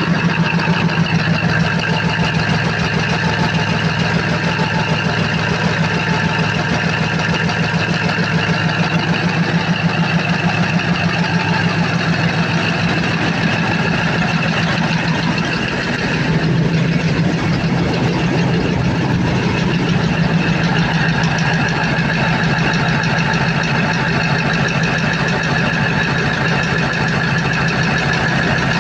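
Freshly overhauled Cummins KTA50 sixteen-cylinder diesel engine idling steadily on its first test run. Its level dips briefly about halfway through, and the tone shifts slightly after.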